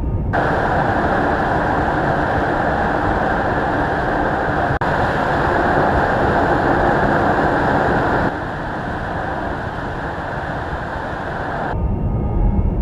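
Car driving, a steady rushing road and running noise without a clear engine note. It comes in edited pieces: it starts suddenly, jumps about five seconds in, drops in level about eight seconds in and cuts off near the end.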